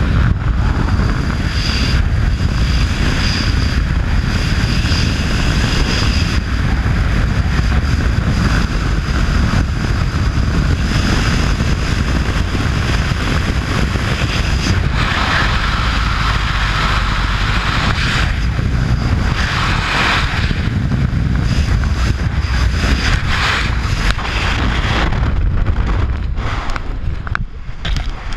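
Freefall wind rushing over a wrist-mounted action camera's microphone: a loud, steady, rumbling buffet that does not let up.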